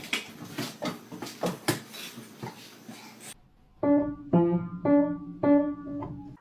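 About three seconds of light clicking and clatter, then four short piano notes struck about half a second apart.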